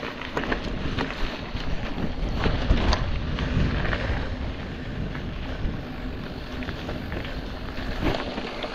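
Wind buffeting a handlebar-mounted camera's microphone as a mountain bike rolls along a path, with scattered knocks and rattles from the bike.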